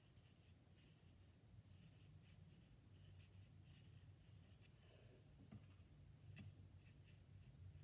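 Faint scratching and light tapping of a small paintbrush dabbing watercolour onto paper in short, irregular strokes, over a low steady hum.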